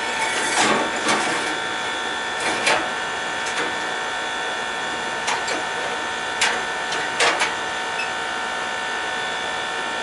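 Short metallic scrapes and knocks as a gas furnace's burner assembly is worked with a metal rod and a gloved hand, about eight of them spread through the first seven and a half seconds. They sit over a steady machine hum with several held tones.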